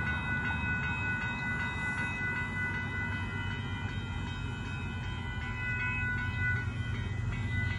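Railroad grade-crossing warning bell ringing steadily, heard as several thin high tones, over a low rumble from the approaching Union Pacific gravel train.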